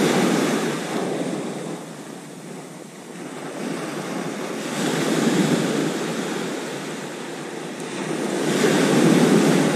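Small waves breaking on a beach, the surf swelling and fading roughly every four seconds.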